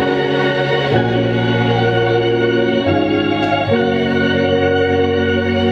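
Background organ music: long sustained chords that change about a second in and twice more later.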